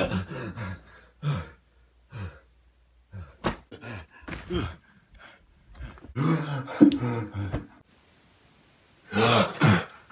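A man's voice giving short yells and grunts, several times with quiet gaps between.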